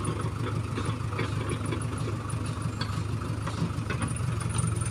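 Backhoe loader's diesel engine idling, a steady low hum, with a few faint clicks over it.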